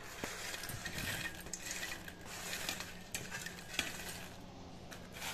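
Crisp deep-fried sweet corn kernels dropping and rattling into a glass bowl, a scatter of small sharp clicks over a light rustle; the crisp rattle is the sign that the kernels are fried crisp.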